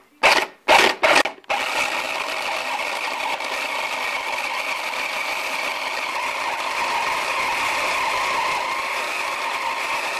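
Electric blender with a chopper bowl mincing chunks of raw chicken breast: a few short pulses, then the motor and blade run steadily at full speed, grinding the meat into mince.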